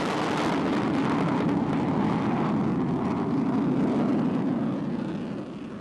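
Panavia Tornado GR1's twin RB199 turbofan engines: steady rushing jet noise as the jet flies past, easing off near the end.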